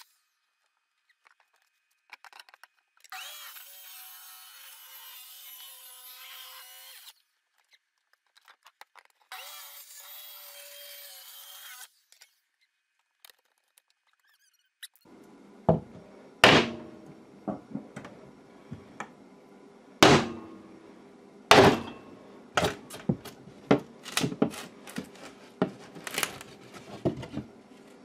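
A power drill runs in two bursts of a few seconds each, drilling through OSB wall sheathing. In the second half come a series of sharp, irregular knocks on the wood sheathing as the cut-out panel is knocked loose.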